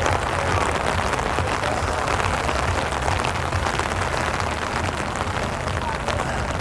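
Heavy rain falling steadily, a dense patter of drops with no let-up.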